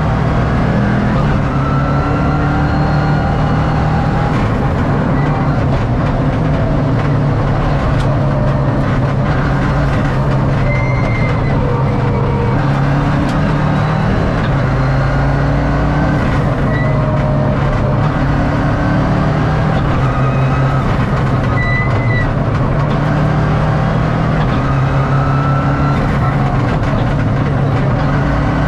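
Subaru Impreza R4 rally car's turbocharged flat-four engine running loud inside the cabin, holding a fairly steady pitch with small steps rather than big revs, over road and drivetrain noise.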